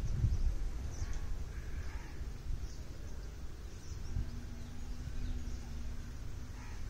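Outdoor ambience: wind rumbling on the microphone, with faint bird calls scattered through. A faint steady hum comes in about four seconds in and fades out shortly before the end.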